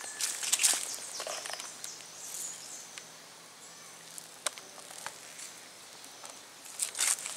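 Dry leaf litter rustling and scraping as fallen fruits are picked up by hand from the ground, with short clicks and knocks; busiest in the first second and a half and again near the end, quieter in between.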